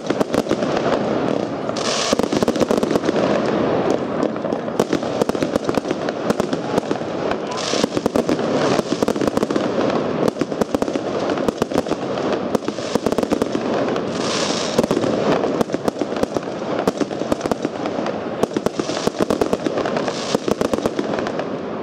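Dynasty Space Shooters firework cake firing: a rapid, unbroken string of shots and crackling, with a brief hissing flare every five or six seconds.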